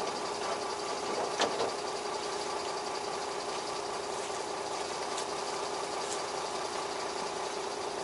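Diesel engine of a Beaver motorhome idling steadily, now running smoothly after a rough cold start. A short knock about a second and a half in.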